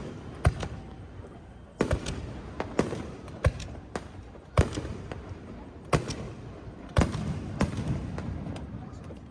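Aerial fireworks shells bursting in quick succession: a dozen or so sharp bangs, roughly one or two a second at uneven spacing, each trailing off in an echoing rumble.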